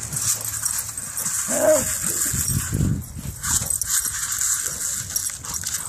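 Two terriers at play, with a short dog vocal, a yip or play-growl, about one and a half seconds in and fainter ones after it, over a steady outdoor hiss.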